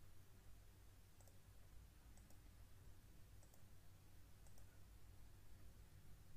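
Faint computer mouse clicks, about one a second and some in pairs, over a steady low hum of room tone.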